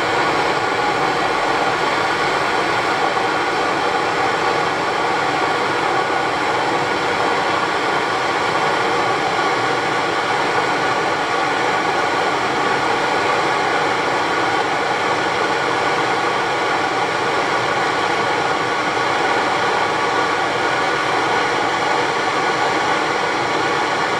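Hand-held gas torch burning with a steady hiss, its flame played on a snowblower's drive pulley hub to heat a seized set screw loose.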